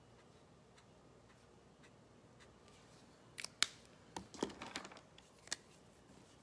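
Craft supplies being handled on a work table: quiet at first, then a short run of sharp clicks and taps starting about halfway through.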